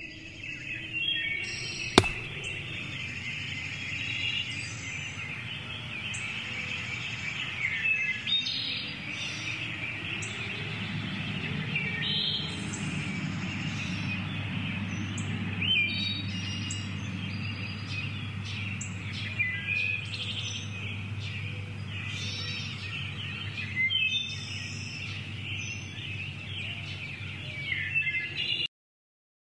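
Several birds chirping and singing over a low steady hum, with one sharp click about two seconds in; the sound cuts to silence near the end.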